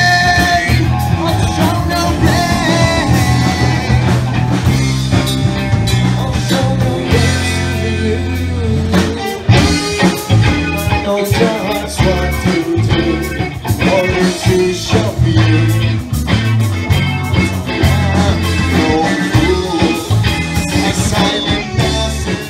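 Live rock band playing with electric guitar, bass guitar, drums and keyboard, a man singing over it. Steady bass notes and regular drum hits carry the music.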